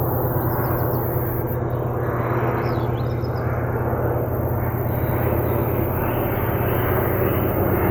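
Propeller plane engine running as a steady drone with a rapid even beat, swelling slowly in level.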